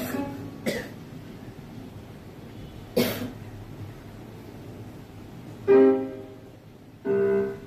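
A single cough about three seconds in, then two short, held instrument notes about a second and a half apart near the end, the first sounds of the song's accompaniment being set up.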